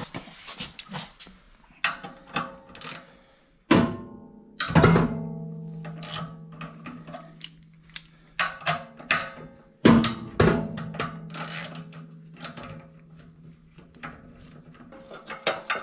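Background music with drum hits and held low notes. The heaviest hits come about four seconds in and again about ten seconds in.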